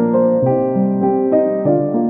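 Background piano music: a slow melody of held notes, a new note or chord every half second or so.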